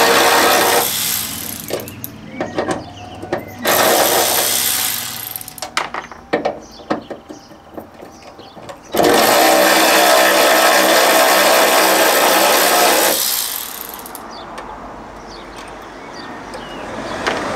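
Cordless power tool whirring in three runs, the longest about four seconds, undoing the bonnet hinge bolts, with small clicks and knocks between the runs.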